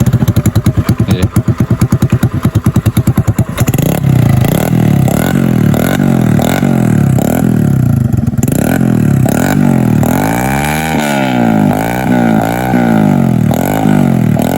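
Straight-piped motorcycle engine, very loud: a choppy, pulsing low-rev run for the first few seconds, then repeated throttle blips with the revs rising and falling.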